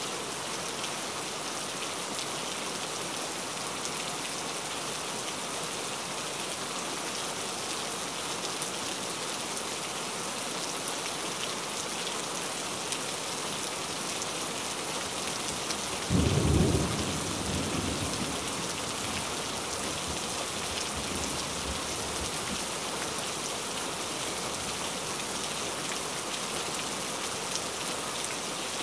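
Steady rain falling, with a sudden clap of thunder a little past halfway through that rumbles away over about three seconds.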